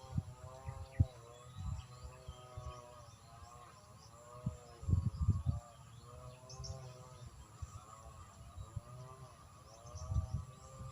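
An animal calling over and over, a short call that rises and falls in pitch about once a second. Low thumps come and go, loudest about halfway through and again near the end.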